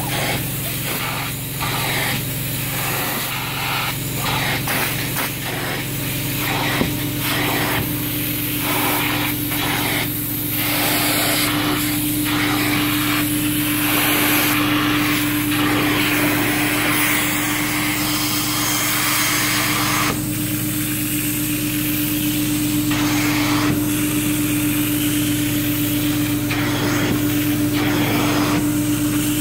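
Truck-mounted carpet-cleaning unit's vacuum drawing through a handheld upholstery extraction tool, a loud hiss with a steady hum under it. The hiss swells and drops as the tool is stroked across the fabric and lifted off it.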